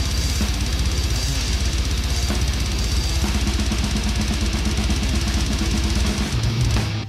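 Death metal drum kit played fast: rapid bass-drum hits under snare and cymbal strikes, stopping abruptly just before the end.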